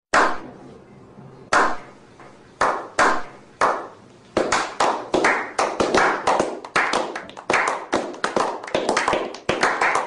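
A run of sharp claps, each with a short ring after it. They are sparse at first and come faster from about four seconds in, two to three a second.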